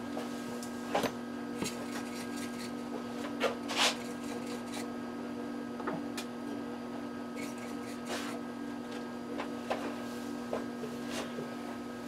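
A steady electrical hum with scattered faint clicks and taps of small parts and tools being handled while he gets ready to solder a wire to a new BNC connector.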